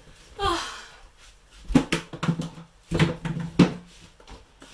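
A cluster of sharp knocks and bumps in a small hallway as a coat and handbag are hung on wall hooks, most of them between about two and four seconds in.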